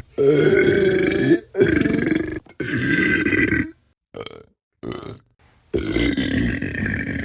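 A run of human burps: three loud, drawn-out burps back to back, two short quieter ones, then another long burp beginning about six seconds in.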